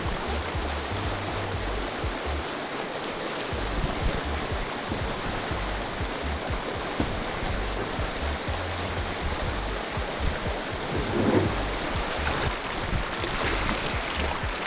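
Steady rush of a fast-flowing river over shallow rapids, with a low irregular rumble underneath.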